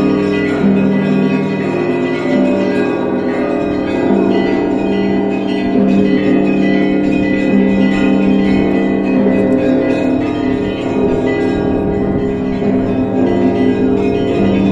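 Russian Orthodox church bell peal: many bells rung together, higher bells struck in quick succession over a heavy bell that sounds about every two seconds, the tones overlapping and ringing on.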